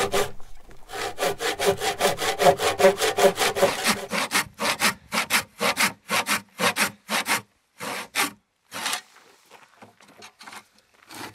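Small blunt handsaw cutting a bird's mouth notch into a thick timber beam by hand, in back-and-forth strokes about five a second. The strokes slow after about four seconds and stop briefly near the end.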